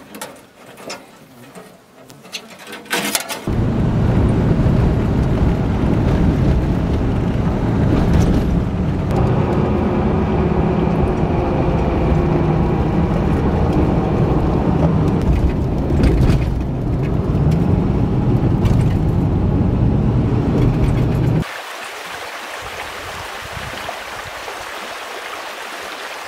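Steady low rumble of engine and tyres heard from inside a moving pickup truck's cab, starting about three seconds in after a few faint clicks. About twenty seconds in it cuts off sharply to a small creek running, a quieter steady rushing hiss.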